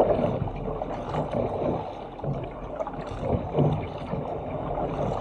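Sea water rushing and splashing along the hull of a fishing ski paddled at speed through open-sea chop, in a steady wash with irregular surges.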